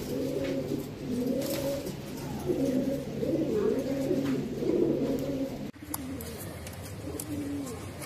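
Mukhi fancy pigeons cooing, with several coos overlapping at once. About two-thirds of the way through the sound cuts off abruptly, and only a few quieter coos follow.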